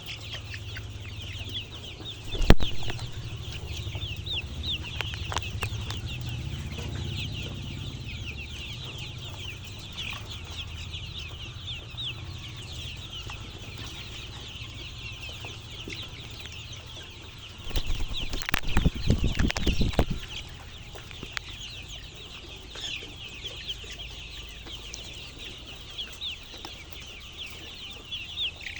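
A large flock of chickens calling all at once: a dense, unbroken chorus of many short, high peeps and clucks. A single loud knock comes about two and a half seconds in, and a burst of low thumping comes around two-thirds of the way through.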